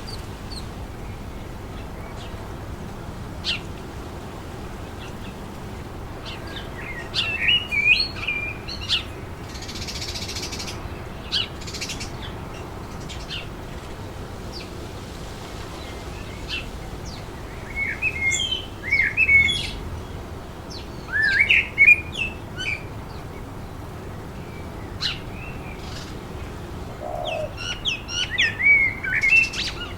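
Birds calling in three bursts of quick chirps and whistles, over a steady rush of wind through trees.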